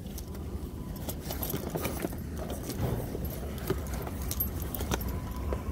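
Metal hardware on soft fabric tool totes, the zipper pulls, clips and buckles, jingling and clicking irregularly as the bags are handled and shifted on the shelf, over a low steady hum.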